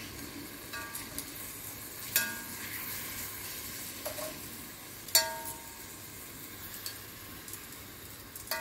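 Beef cheeks searing in oil in a cast-iron pot, a steady sizzle throughout. Metal tongs clink against the pot a few times as the pieces are turned, loudest about two and five seconds in.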